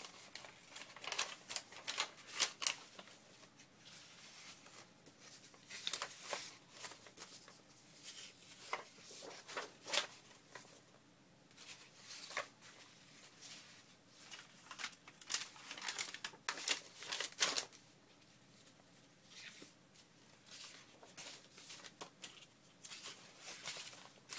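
Sheets of paper being handled, shuffled and slid together into a stack, giving irregular rustles and brief flaps.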